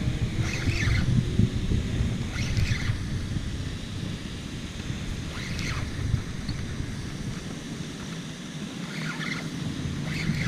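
Wind buffeting the microphone, an uneven low rumble that eases off a little near the end. A few short, high sounds come through it now and then.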